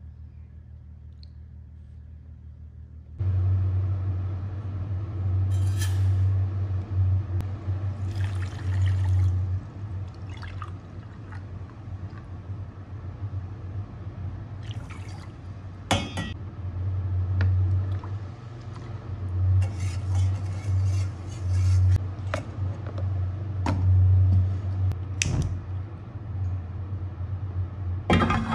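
Water poured from a glass into a stainless steel pot, with a few sharp knocks of metal cookware on the stove grate, over a steady low rumble.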